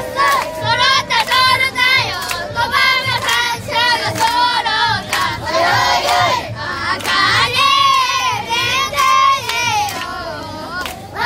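A group of children singing a Japanese festival song (matsuri-uta) together, clapping their hands in time, with a crowd of voices around them.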